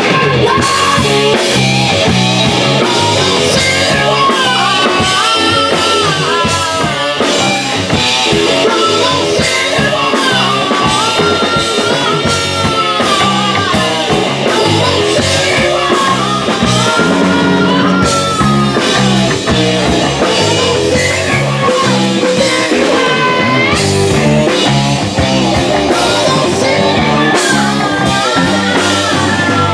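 Rock band playing live and loud: electric guitar with bending melodic lines over bass guitar and a drum kit.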